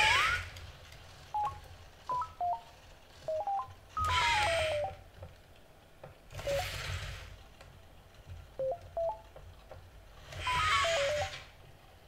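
A NAO humanoid robot's nonverbal sounds: short electronic beeps at different pitches in quick little groups, some runs stepping down in pitch. Four louder whirring noise bursts come from its joint motors as it gestures with its arms.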